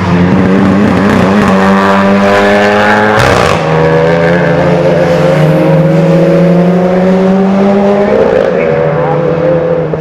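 Race car engines at full throttle on a circuit, the revs climbing steadily as the cars accelerate. The sound breaks off abruptly about three seconds in and another car's engine takes over, pulling up through its revs with a gear change near the end.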